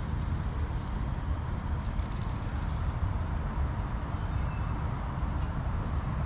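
Steady outdoor background: insects buzzing over a constant low rumble, with no distinct events.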